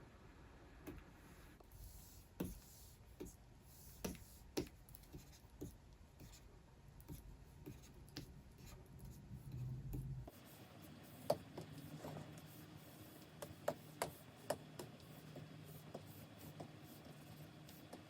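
Stylus tapping and stroking across the screen of a Wacom Cintiq 24 Pro pen display: soft scratchy drawing strokes with scattered light taps.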